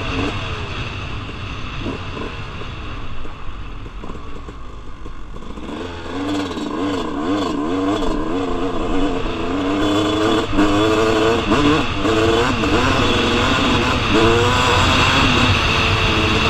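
2001 Suzuki RM250's single-cylinder two-stroke dirt bike engine under way, its pitch repeatedly rising and falling as the throttle is worked on a rough trail. It runs softer for the first several seconds, then gets louder with quick revving from about six seconds in.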